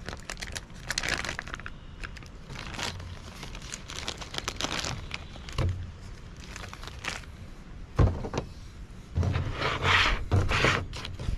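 Plastic zipper bag crinkling and rustling in bursts as it is handled and the boiled omelet is shaken out of it, with a single thump about eight seconds in.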